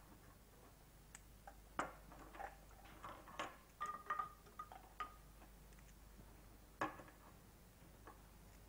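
Small objects handled at a wooden table: faint, irregular light clicks and taps for about four seconds, with a few short ringing clinks against china, then one sharper click a little later.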